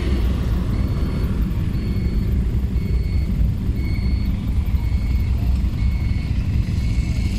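Busy street traffic: a steady low engine rumble of motor tricycles and cars, with a faint high electronic beep repeating about once a second.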